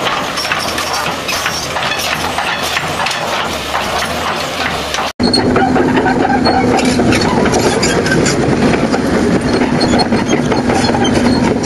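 Tracked excavator diesel engines running, with dense clanking and knocking. After about five seconds there is an abrupt cut to a Komatsu PC360 excavator's engine running with a steady hum and a rapid clatter, close by.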